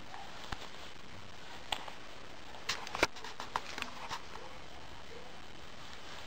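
Camera handling noise: a few small clicks and knocks over a steady hiss, bunched together about three seconds in, with one sharper knock in the middle of the bunch.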